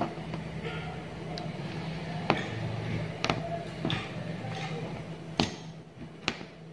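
An aari hook needle punches through fabric stretched tight on an embroidery frame while glass beads are stitched on one at a time. It gives about six sharp taps at uneven intervals, over a steady low hum.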